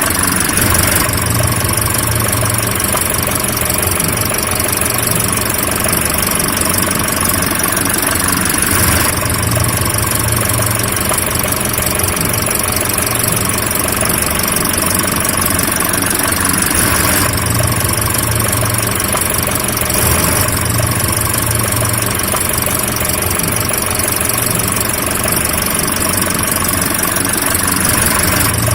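Car engine running steadily at idle, an even, unbroken sound with no revving.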